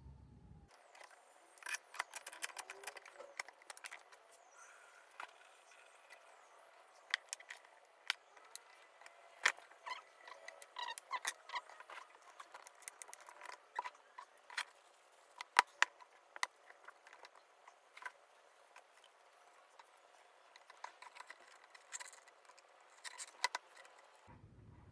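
Irregular light clicks, taps and clinks of small metal shock-absorber parts being handled and set down, with a few sharper knocks now and then.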